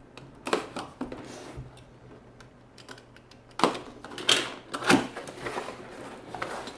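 Cardboard keyboard box being opened and its packaging handled: a series of scrapes, rustles and knocks, the loudest cluster between about three and a half and five seconds in.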